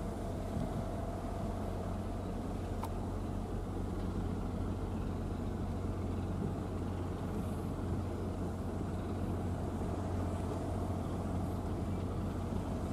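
Steady low hum of a ship's engine running, with a faint higher tone over it.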